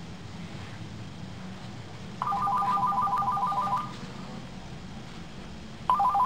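Uniden DECT 6.0 cordless phone ringing with an incoming call: an electronic warbling ring of about a second and a half, with the next ring starting near the end.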